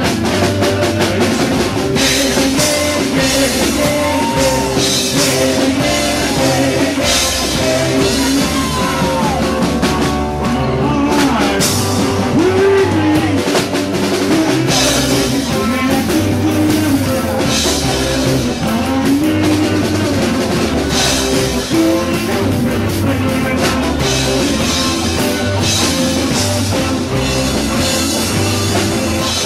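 Live rock band playing: drum kit, electric guitars and bass going steadily through a rock-and-roll number, recorded loud and a little distorted.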